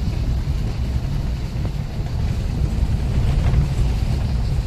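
A car driving slowly over a rough, muddy dirt road, heard from inside the cabin: a steady low rumble of engine and road noise.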